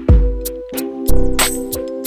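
Background music with a steady beat: sustained chords over deep bass hits and regular sharp ticks.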